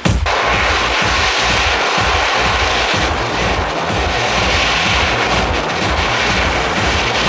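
Lockheed C-130 Hercules four-engine turboprop transport running on the runway: a loud, steady engine and propeller noise with a low throb underneath.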